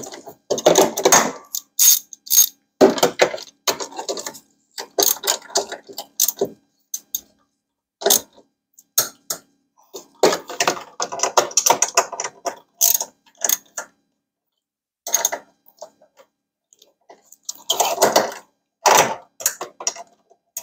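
Hand ratchet clicking in quick runs as two bolts are tightened, pausing between bursts of strokes, with a quiet stretch a little past the middle.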